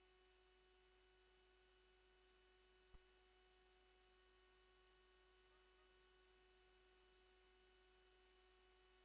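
Near silence: a faint steady electrical hum, with one small click about three seconds in.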